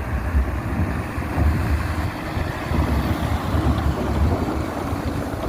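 Road vehicles running past with a steady rumbling road noise, mixed with wind buffeting the microphone.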